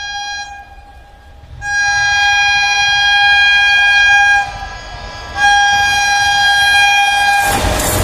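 Electric locomotive's horn sounding one steady high note in three blasts: one ending about half a second in, then two long blasts of about three and two seconds. Near the end the rushing noise of the train passing close by takes over.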